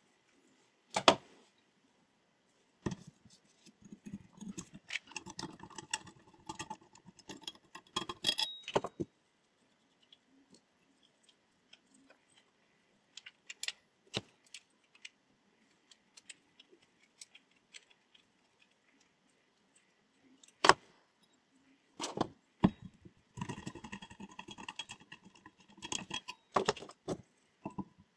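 Small metal objects being handled on a hard surface: scattered sharp clicks and knocks with bursts of light clinking and rattling, separated by quiet pauses.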